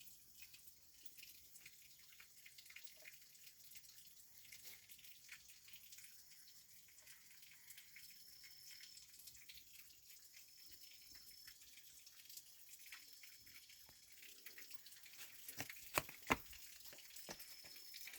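Faint night frog calls: scattered soft, drip-like clicks, with a short high note repeating every two to three seconds from about halfway, and two sharper clicks near the end.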